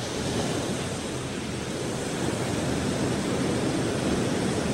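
Steady rushing outdoor noise, an even wind- or surf-like hiss with no distinct events.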